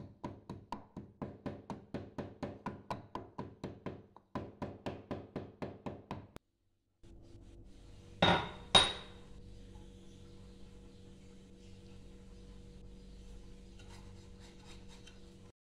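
Hand knocks on an upturned clay cooking pot, about three a second with a brief pause, tapping out the roasted contents. Then a steady low hum, with two sharp ringing clinks about eight seconds in.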